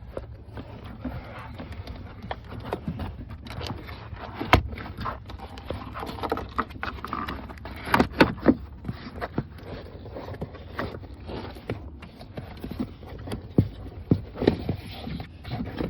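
Irregular knocks, clicks and scrapes of hand work on a truck, the loudest about four and a half seconds in and again around eight seconds, over a steady low hum.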